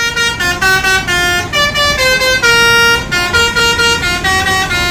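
A multi-tone bus air horn playing a quick melody of short notes with one longer held note about halfway through.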